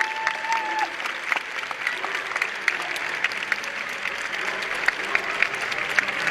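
Audience applauding, a steady patter of many overlapping claps. A held steady tone cuts off about a second in.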